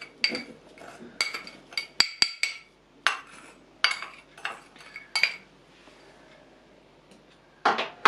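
A metal spoon clinks and scrapes against a small glass bowl, knocking powdered sugar out into a wooden bowl. It makes about a dozen sharp, ringing clinks over roughly five seconds, then a pause, then a single knock near the end.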